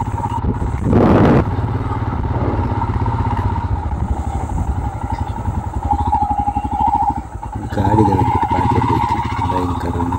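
Royal Enfield Himalayan's 411 cc single-cylinder engine running as the motorcycle rides slowly, a steady low thump throughout. A short loud burst of noise comes about a second in.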